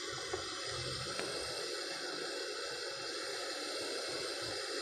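Steady background hiss, with two faint clicks in the first second and a half.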